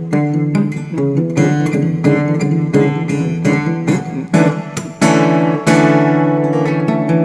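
Resophonic guitar played solo without singing: a run of quick picked notes, then several strummed strokes about four to six seconds in, with the last chord left ringing.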